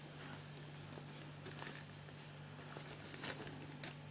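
Faint rustles and a few light clicks from a plastic blister pack being turned over in the hands, over a low steady hum.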